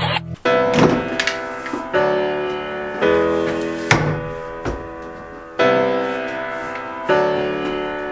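Background music of struck, piano-like chords, a new one about every second or so, each ringing and fading, with a few sharp percussive hits.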